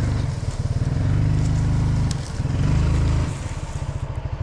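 Coleman UT400 UTV engine pulling under load, revving up in two surges as it drags a snapped treetop, then dropping back to a lower, lumpy running speed about three seconds in.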